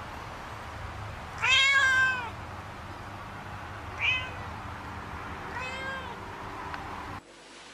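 A domestic cat meowing three times: a long, loud meow about one and a half seconds in, a short one around four seconds, and a medium one about two seconds later, over a low steady hum.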